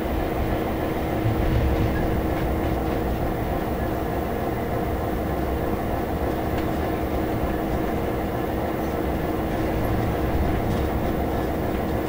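Class 66 diesel locomotive's two-stroke V12 engine running steadily under way, heard from inside the cab, over the rumble of wheels on the track with a few faint clicks as they run over rail joints and points.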